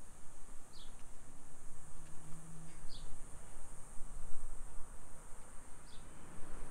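Steady high-pitched insect drone in summer heat, with a bird giving a short falling chirp three times, over a low, uneven rumble.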